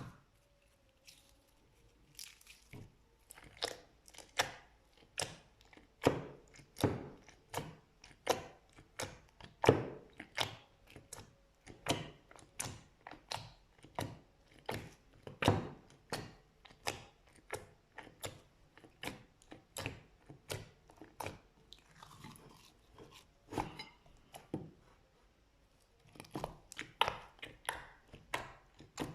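Slime being worked, giving a string of sharp crackling pops, about two a second, with a short break near the end before they start again.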